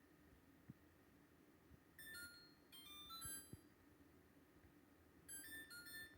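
LG LFX25960ST refrigerator's control panel beeping by itself, faintly: short electronic beep pairs about two seconds in and again near the end, with a quick run of chime tones just after the first pair. This unprompted beeping, along with the panel lights flashing, is the fridge's fault.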